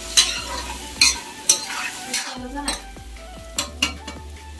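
Meat sizzling in an iron wok, with a metal spatula scraping and clinking against the pan about eight times as it is stirred.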